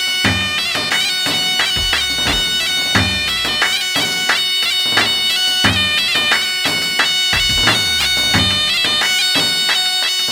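Loud traditional wedding music: a reedy wind instrument of the bagpipe or zurna kind holding a steady, droning melody over a drum beating out a rhythm.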